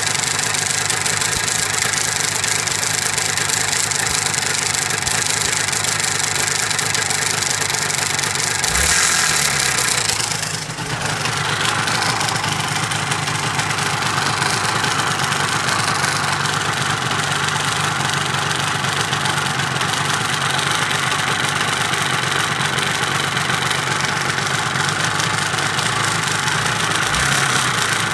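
Yamaha R1-Z two-stroke parallel-twin engine running steadily at idle. For the first ten seconds or so it is heard from the left side with a clacking, ticking noise, the warning sign of an engine about to seize a piston; then the sound changes as it is heard from the right side, where that noise is much less evident.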